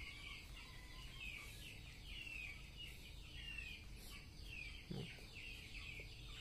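Chickens giving faint, high chirping calls, several short downward-sliding chirps a second without a break, with one soft thump about five seconds in.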